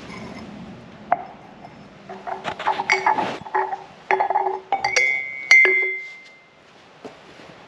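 Brown ceramic mugs and a small glass jar clinking as they are set down on a concrete floor and knocked against each other: a single knock about a second in, then a run of clinks and knocks, the loudest near the middle ringing on briefly before fading.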